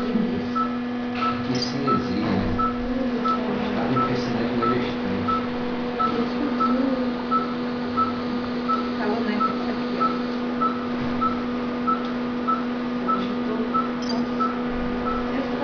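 Patient monitor beeping with each pulse picked up by the pulse-oximeter clip on the mother's finger: short even beeps at one pitch, about one and a half a second. A steady low hum of equipment runs underneath.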